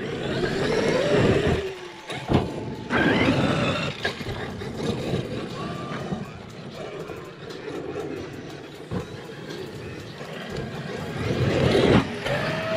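Traxxas X-Maxx electric RC monster truck driving hard on a dirt trail: its brushless motor whines, the pitch rising and falling with the throttle, over the noise of the tyres churning dirt and gravel. It is loudest in the first couple of seconds and again near the end.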